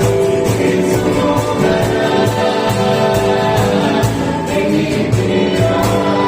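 A live gospel song: a group of voices singing held notes over a band with a steady drum beat.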